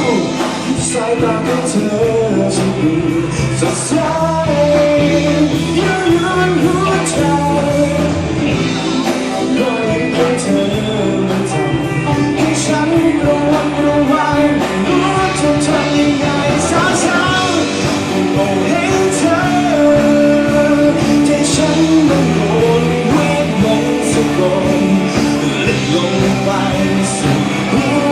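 A rock song playing, with singing over a full band backing.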